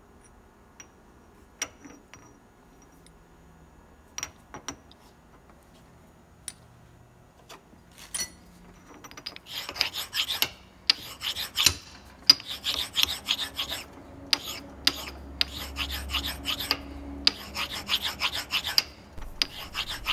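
A few scattered clicks as the steel shaft is handled in the vise. Then, about nine seconds in, a flat sharpening stone rasps back and forth over the hardened steel shaft in short, uneven strokes, stoning down its high spots.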